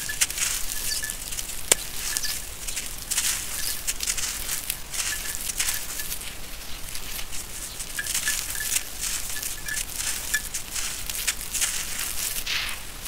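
Dry sand-cement lumps crushed and crumbled by hand, grit and powder pouring down onto a sandy floor: a steady gritty crunching hiss full of small crackles, with one sharp click a little under two seconds in.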